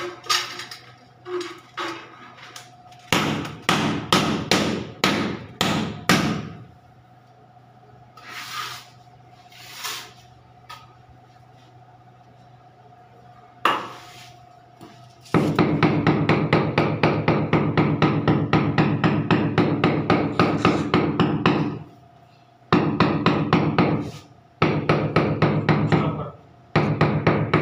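A hammer tapping on a large ceramic floor tile to bed it level into the wet mortar. It starts with a handful of separate knocks, then comes in long, rapid runs of taps, several a second.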